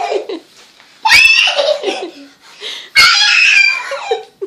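A young child's shrieking laughter, two loud high-pitched squeals about a second in and about three seconds in, while being tossed up and caught, with a man laughing along.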